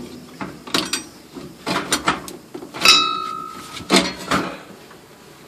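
Irregular clicks and knocks of plastic and metal as gloved hands work the fuel-line fittings on a fuel pump module in the tank opening. One sharp metallic tap about three seconds in rings briefly, and the handling goes quiet shortly after four and a half seconds.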